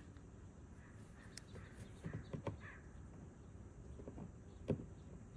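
Faint, scattered clicks and knocks of plastic as a push-in trim tab is worked loose from the wheel-well trim, with a sharper click about four and a half seconds in.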